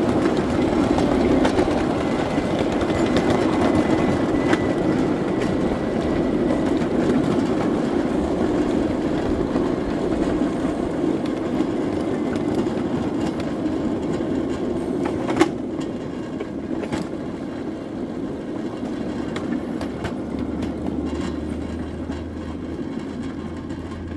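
Ride-on miniature-railway locomotive and freight cars rolling along the track with a steady rumble. A faint wheel squeal comes a few seconds in and one sharp click about midway. The train grows quieter as it slows, and a steady low hum comes in near the end.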